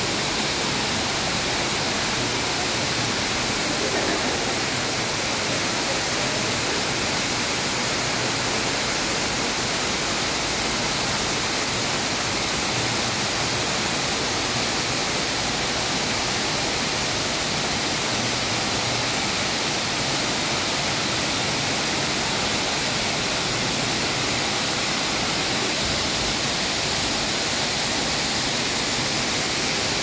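Indoor artificial waterfall: a thin curtain of water falling from a high roof through foliage, making a steady, even hiss of splashing water.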